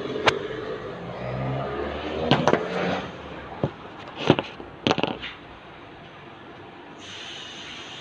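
Handling noise: several sharp clicks and knocks of small parts and the camera being moved, over a low rumble. A faint steady hiss begins near the end.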